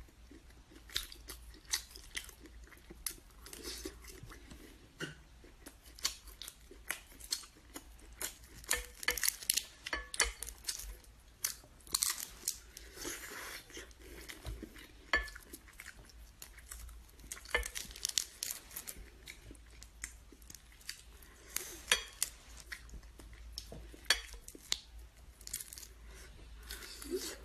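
Close-up chewing and crunching of prawns, with the shells being torn and bitten: many small, sharp, irregular crackles and clicks.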